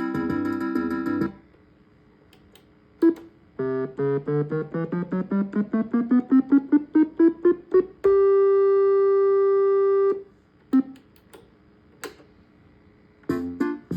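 Suzuki Omnichord OM-84 electronic instrument being played. A rhythmic chord pattern stops early, then a run of quick plucked notes climbs steadily in pitch. A single note is held for about two seconds and cuts off, a few lone notes follow, and a chord pattern starts again near the end. The repaired instrument is working.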